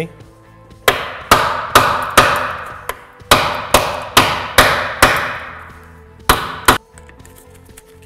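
Hammer striking a pry bar driven behind a steel wheel hub bearing, about ten sharp metallic blows in three quick runs of roughly two per second, each ringing briefly. The hub is rusted into the steel axle beam and is being knocked free.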